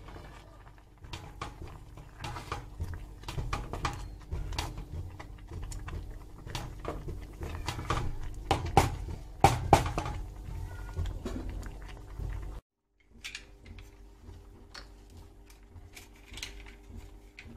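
Cooking pots, pans and utensils knocking and clinking in irregular sharp clatters, loudest around nine to ten seconds in. The sound cuts off abruptly about three-quarters of the way through, and afterwards there is a faint steady hum with a few lighter clinks.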